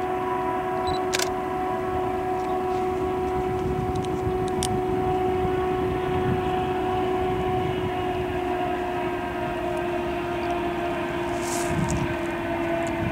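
Freight train rolling past at speed: a steady rumble of wheels on rail with a constant droning hum, and a few sharp clicks.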